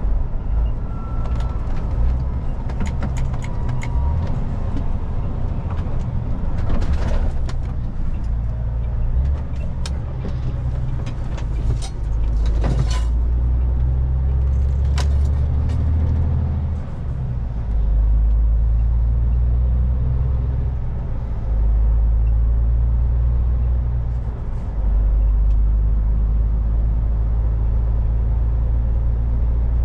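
MAN TGX semi-truck driving, its diesel engine and road noise making a deep steady drone that steps up and down in level several times. Scattered sharp clicks come in the first half.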